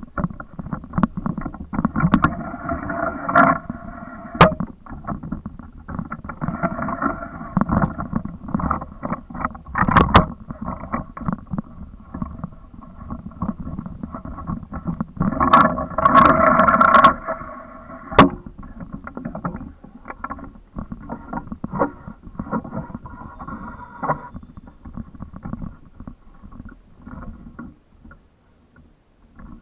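Wind buffeting the microphone of an action camera: an uneven low rumble with many crackles and knocks, loudest about ten seconds in and again around sixteen to seventeen seconds in.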